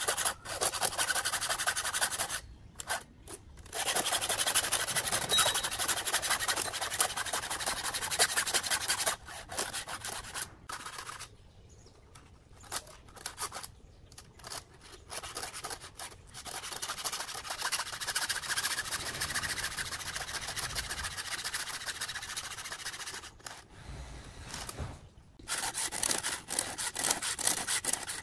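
Round file rasping against the cutters of a saw chain in quick repeated strokes, stopping for a few short pauses: the chainsaw chain being hand-sharpened.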